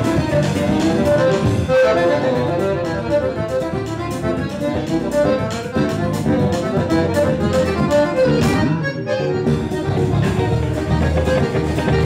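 Piano accordion playing the melody of an instrumental Brazilian jazz tune, with electric guitar, bass and drums accompanying.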